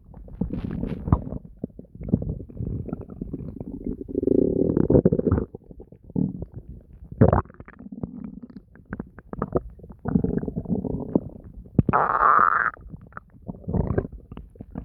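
A person's stomach gurgling and growling in uneven bursts: deep low rumbles broken by quick bubbling clicks, with a brief higher, squeaky gurgle about twelve seconds in.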